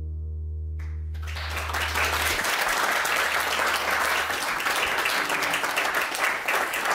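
The last chord of an acoustic guitar rings on and dies away, its low notes fading over the first few seconds. About a second in, an audience breaks into applause, which keeps going steadily and is the loudest sound.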